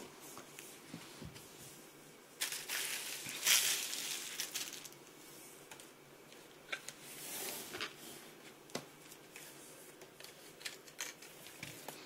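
Cardboard packaging and a paper target being handled and moved on a wooden table: rustling and crinkling in a few short bursts, with scattered light taps and clicks.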